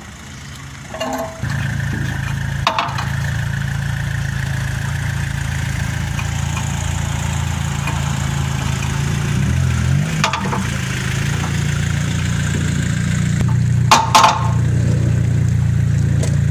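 A car engine comes on about a second and a half in and then runs steadily at low speed as the car creeps down aluminium loading ramps. A few sharp metal knocks come from the ramps under the wheels, the loudest a double knock near the end.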